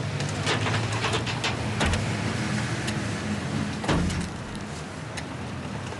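Sharp metallic clicks and knocks as a car's hood latch is worked, then a louder knock about four seconds in as the hood is raised, over a steady low hum.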